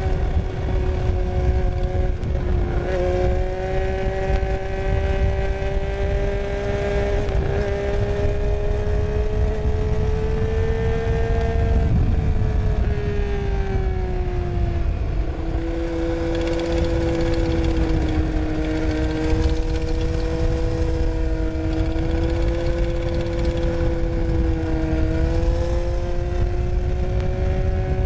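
Triumph Street Triple 675's inline-three engine and drivetrain heard onboard while riding, with heavy wind noise on the microphone. A steady whine rises slowly in pitch, falls away about halfway through, then holds steady lower. The owner reports strange drivetrain sounds on this bike after a new chain and sprockets, and a bent gearbox output shaft.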